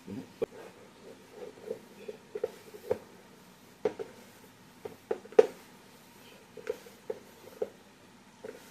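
Hands mixing and kneading flour-and-water dumpling dough in a bowl: irregular soft slaps and knocks, the loudest about five and a half seconds in.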